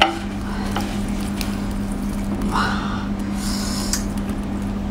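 Hands tearing apart a braised lamb rib, giving a few soft, wet tearing and squishing sounds over a steady low hum.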